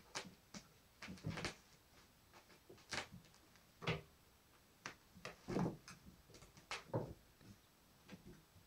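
A kitten playing with a padded fabric bag on a wooden floor: irregular rustles, scrapes and soft knocks as the bag is pushed and shifted, a dozen or so in a few seconds.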